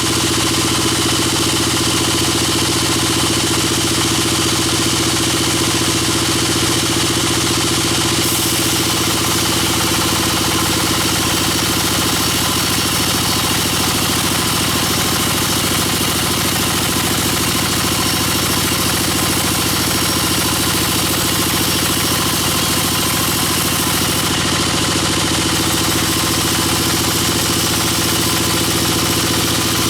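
Sawmill bandsaw machinery running steadily, a constant engine-like drone.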